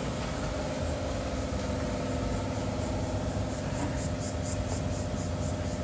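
A motor running steadily, a constant hum, with a short run of rapid high ticks about three and a half seconds in.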